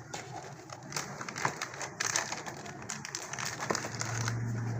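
Scattered light clicks and scraping of a spoon against a bowl as cornflour is added to chicken marinade, with a low steady hum coming in near the end.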